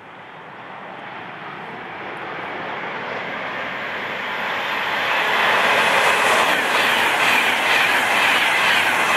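Virgin Class 390 Pendolino electric train approaching at high speed and passing close by. Its rushing noise grows steadily louder over about five seconds, then holds loud, with a rapid clatter of wheels as the carriages run past.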